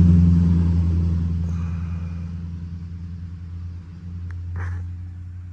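A motor vehicle's engine running with a steady low hum, loudest at the start and fading away over the next few seconds as it moves off.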